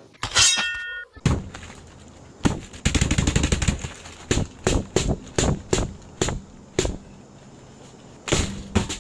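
Cartoon fight sound effects of a beating: a short chime-like sound at the start, then a rapid flurry of sharp hits, followed by single hits about twice a second and a last pair near the end.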